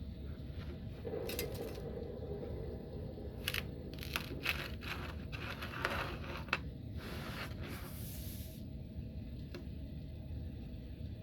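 Kinetic sand being squished and cut: a run of gritty crunching and scraping with a few sharp clicks, which stops a little past the middle.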